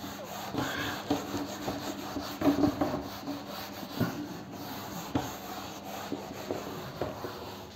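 A board eraser rubbing across a whiteboard in irregular back-and-forth strokes, wiping off marker writing.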